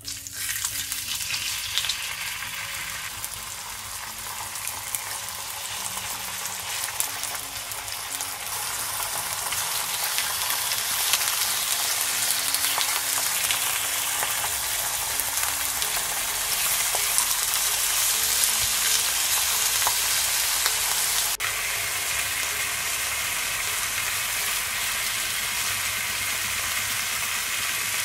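Slices of raw beef searing in hot oil in a nonstick frying pan over high heat: a crackling sizzle that starts at once as the first slice goes in and grows louder as more slices are added.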